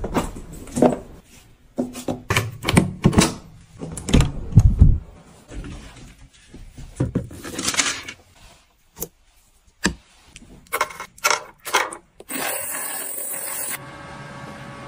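A string of short knocks, clicks and thuds from household objects being handled, with a steady hiss lasting about a second and a half near the end.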